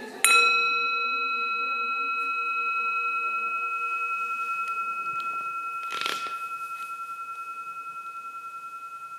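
Metal singing bowl struck once with a mallet, ringing out with several overtones in a long, slowly fading tone that pulses with a steady wobble.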